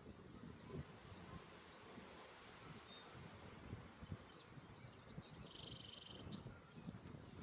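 Faint open-air ambience with low wind rumble; about halfway through a bird calls once, a short high whistle followed by a buzzy trill lasting a second or so.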